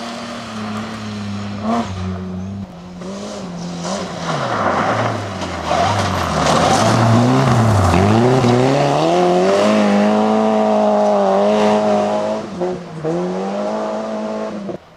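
Rally cars at full attack on a gravel stage, a BMW E36 3 Series and then a Skoda: engines revving hard, their pitch dipping and climbing again and again through lifts and gear changes, loudest in the middle as the Skoda slides past close by. The sound cuts off suddenly near the end.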